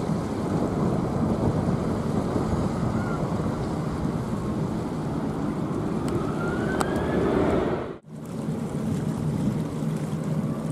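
Jet engines of a Boeing 787-9 airliner at takeoff power as it lifts off and climbs, a steady roar with a faint rising whine. It cuts off abruptly about eight seconds in, and the engines of a Boeing 777-200ER rolling on the runway take over.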